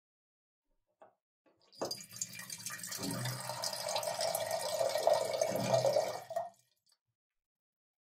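Water dispenser running: a faint click about a second in, then water streams out for about five seconds and stops.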